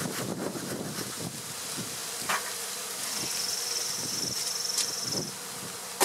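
Honey bees buzzing in flight around an open hive, the pitch rising and falling as single bees pass close. A single click sounds a little over two seconds in.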